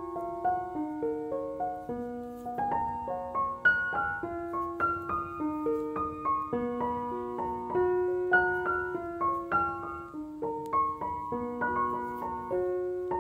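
Background piano music: a gentle, flowing melody of many quick notes over sustained lower notes.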